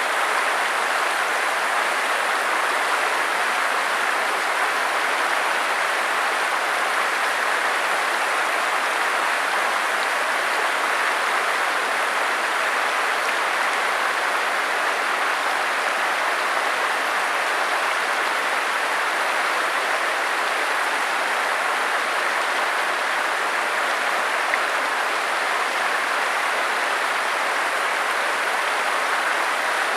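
Stream water rushing steadily over rocks and logs, an even, unbroken wash of noise.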